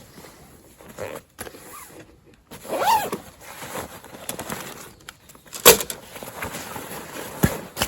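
Camping gear being handled while a tent is pitched: scattered clicks and knocks, with one sharp knock about two-thirds of the way through.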